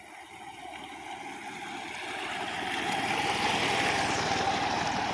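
An engine running and growing steadily louder as it approaches, with a rushing hiss over it.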